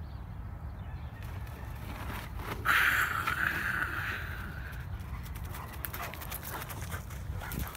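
Quick irregular clicks and patters of dogs' paws and footsteps on a dry dirt track as two dogs run, over a low rumble of handling noise. About three seconds in, a hissing noise lasting about two seconds is the loudest sound.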